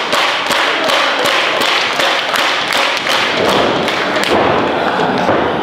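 A fast, even rhythmic beat of sharp strikes, about three a second, that stops about four and a half seconds in.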